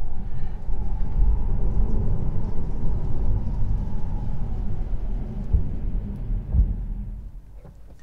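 Tyre and road noise inside the cabin of a Tesla Model 3 Performance driving on a wet road: a steady low rumble that dies away near the end as the car brakes hard from about 90 km/h almost to a stop.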